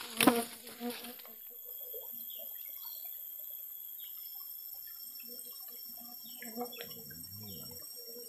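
A sharp knock just after the start, then a steady high-pitched drone of rainforest insects, with a few faint chirps scattered through it.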